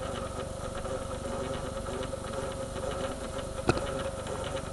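Sanyo VHR 2250 VCR running a tape in play, a steady motor hum and whine from the transport mechanism. A single sharp click about three and a half seconds in.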